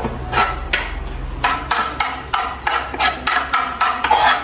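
A metal spoon tapping and scraping against a wooden cutting board, knocking chopped cilantro off it into a glass bowl: a rapid string of sharp wooden knocks, about three a second.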